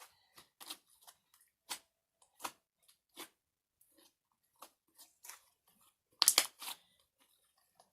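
Fluffy slime being kneaded and stretched by hand, making irregular sticky crackles and pops, with a louder burst of crackling about six seconds in.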